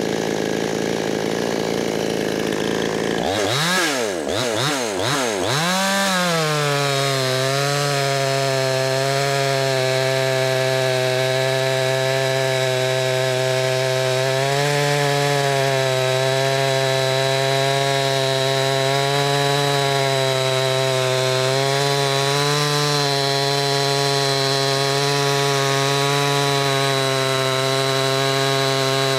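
Ported Coocheer 6200 clone two-stroke chainsaw with an opened-up muffler, tuned to about 13,000 rpm: idling at first, revved up and down a few times about three seconds in, then held at full throttle cutting through a log, its pitch steady with small dips under load.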